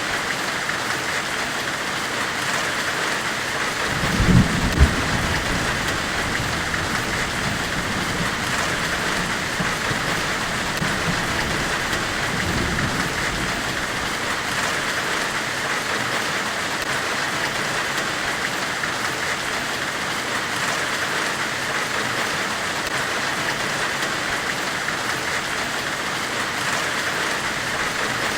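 Steady forge-weld hiss with faint ticks through it, and dull low thuds about four seconds in and again around twelve seconds.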